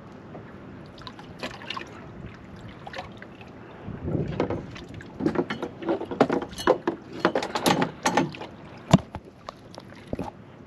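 Handling noise from a fishing rod and baited rig: after a few quiet seconds comes a rustle and a run of irregular clicks and knocks, then one sharp click near the end.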